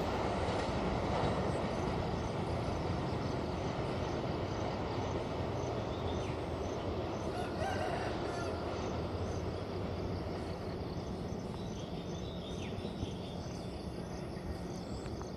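Passenger train running on the rails, its steady rumble slowly fading away. A rooster crows once, faintly, about halfway through.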